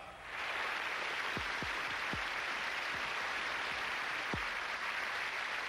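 Large audience applauding steadily, with band music under it and a few low drum thuds.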